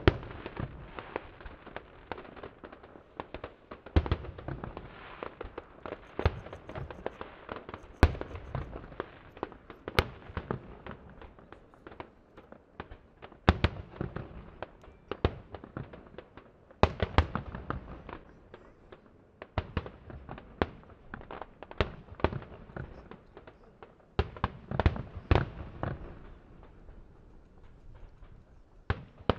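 Aerial firework shells bursting in an irregular string of sharp bangs, many in quick succession, with a noisy spread of crackle and rumble between them.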